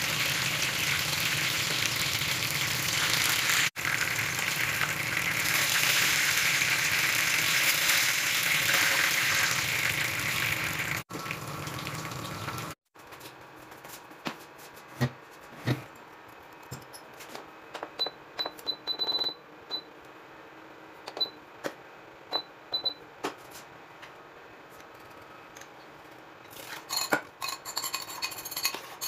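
Tilapia fillets frying in hot oil in a pan, a steady loud sizzle that stops abruptly about a third of the way in. Then quieter handling clicks and knocks, a run of short high beeps like the induction cooker's control buttons, and a steel pot clattering onto the hob near the end.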